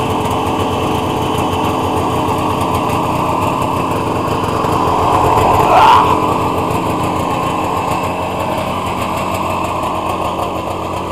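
Polaris Indy 440 snowmobile's two-stroke engine idling steadily, with one brief rev about five to six seconds in.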